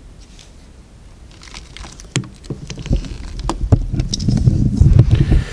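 Camera handling noise: a few scattered clicks, then rubbing, knocking and low rumbling that builds and grows loud through the second half as the camera is swung around.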